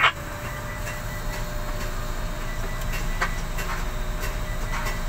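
Tower crane cab with the crane working: a steady mechanical hum and low rumble, with scattered light clicks and ticks.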